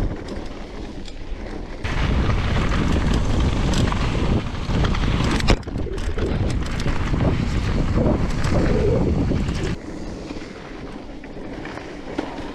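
Wind buffeting the camera microphone, with tyre rumble and rattle from a Giant Reign E+1 electric mountain bike riding fast down a rough trail. The noise gets louder about two seconds in, has one sharp knock about halfway through, and eases off again near the end.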